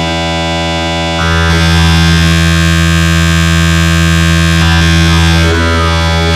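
Dark MIDI rendition of a Sony Xperia ringtone: a dense, buzzing wall of synthesized notes held as one sustained chord, growing louder about a second in and thinning out near the end.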